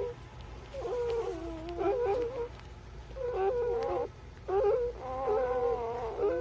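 Newborn puppies whining while nursing: several drawn-out, wavering cries with short pauses between them.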